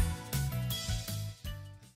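Background music with a steady bass beat, fading out near the end.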